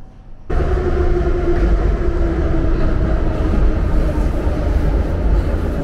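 Inside a St. Petersburg metro car running in a tunnel: a loud, steady rumble of wheels on rails with a steady motor hum over it, cutting in abruptly about half a second in after a quieter moment.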